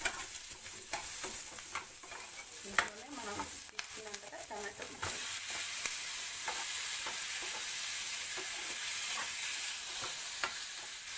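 Onion chunks and tomato wedges frying in butter in a steel pan: a steady sizzle, with a spatula clicking and scraping against the pan as it stirs, the clicks most frequent in the first few seconds.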